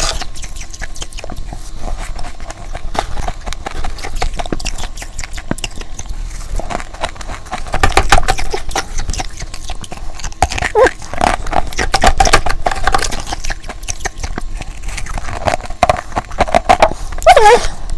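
Ice being bitten and crunched close to the microphone: a dense run of crisp cracks and crunches, with a few short squeaky tones about eleven seconds in and near the end.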